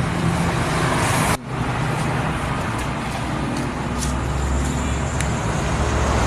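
Road traffic noise: vehicles running past, with a steady low engine hum. The sound drops out abruptly about a second and a half in and comes straight back.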